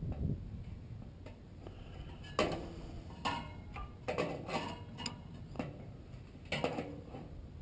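Hand tools clicking and clinking against the metal of a furnace blower motor and its squirrel-cage wheel: about nine sharp, irregularly spaced knocks while the motor is being worked loose from the wheel.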